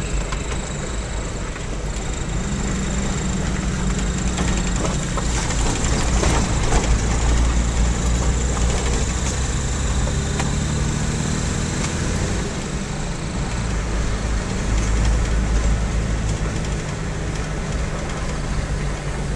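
Car driving slowly over a rough dirt road, heard from inside the cabin: a low engine and road rumble whose pitch shifts up and down, with frequent knocks and rattles as the car jolts over the ruts.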